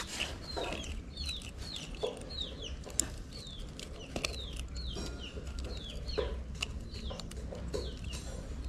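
Chicken chicks peeping: short, high-pitched falling chirps repeated about two to three times a second, over a faint steady low hum.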